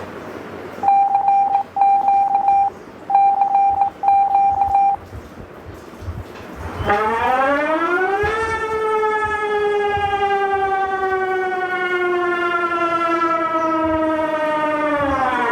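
Emergency alarm sound: four short, steady beeps in two pairs, then a siren wail that rises over about a second and a half, holds while sinking slowly in pitch, and falls away near the end.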